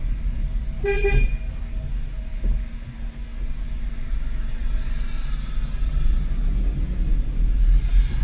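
Steady low engine and road rumble heard from inside a car cabin as the car creeps forward slowly. One short car-horn toot sounds about a second in.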